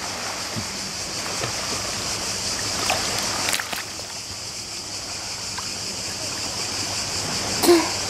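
Sea water splashing around a swimmer in a snorkel mask as she ducks her face under the surface and comes up, with a few sharp splashes about three seconds in over a steady high hiss. A brief voice sound near the end.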